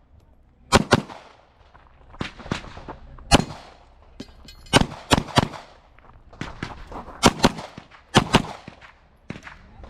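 Pistol shots fired in quick pairs, about a dozen in all, with short pauses between the pairs. This is the rhythm of double taps on targets during an IPSC stage run. A three-shot string comes about five seconds in.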